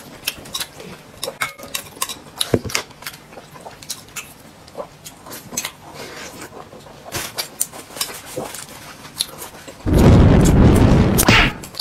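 Eating at a table: scattered small clicks of chopsticks and dishes and mouth sounds from someone eating noodles. About ten seconds in, a loud rushing noise runs for about a second and a half.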